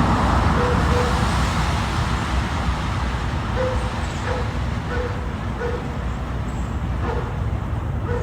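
A dog barking repeatedly, the barks short and muffled, over a steady low rumble.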